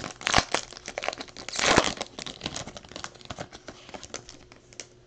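Foil wrapper of a Finest baseball card pack being torn open and crinkled, loudest in the first two seconds, then dying down to a few faint crinkles.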